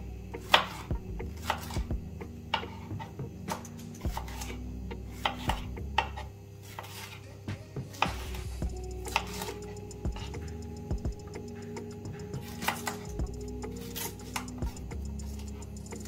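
A kitchen knife slicing a red bell pepper into strips on a wooden chopping board: irregular knocks of the blade striking the board, a few a second, over soft background music.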